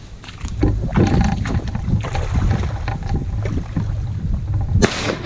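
Strong wind buffeting the microphone in a steady low rumble, with crackles and rustles over it and one sharp, loud burst near the end.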